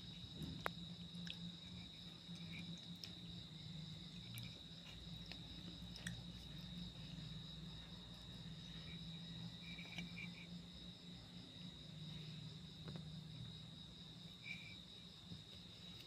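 Crickets trilling steadily in the background, a continuous high pulsing tone, with a few faint clicks and taps scattered through.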